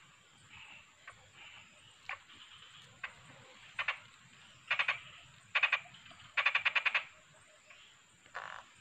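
A frog calling at the stream: after a couple of single clicks, several short bursts of rapid clicking pulses, the longest about half a second near the middle.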